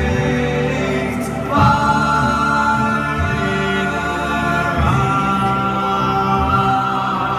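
Music with choir-like voices singing long held chords; the chord changes about one and a half seconds in and again about five seconds in.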